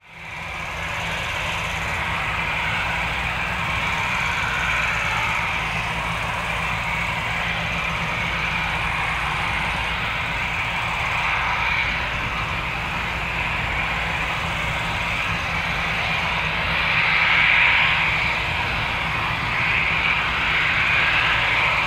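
An Airbus A319's twin jet engines run at low power while the airliner taxis, giving a steady whine over a low rumble. The sound fades in at the start and swells briefly a few seconds before the end.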